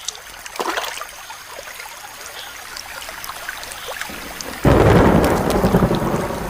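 Thunder and heavy tropical rain break suddenly about four and a half seconds in, after quiet forest sound with a few faint chirps.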